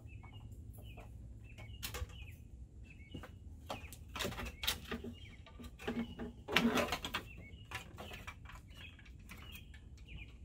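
Plastic interior trim being worked loose and pulled from a Jeep Grand Cherokee's rear cargo area: scattered clicks and knocks, loudest in a cluster a little past the middle. A small bird chirps repeatedly, one or two short chirps a second.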